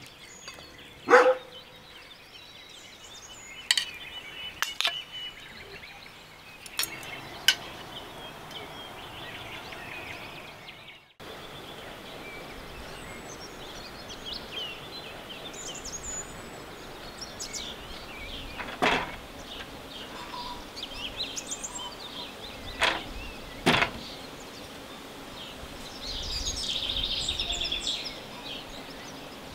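Outdoor rural ambience: birds chirping, with occasional sharp clicks and knocks.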